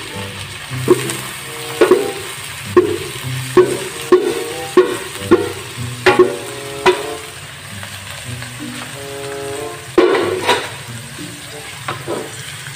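A wooden spatula knocks and scrapes against an aluminium pot as cooked abaleng are scraped out into a hot pan of oil, garlic and onion, which sizzles. There are about a dozen sharp knocks over the first seven seconds, a quieter stretch of sizzling, then a loud knock about ten seconds in.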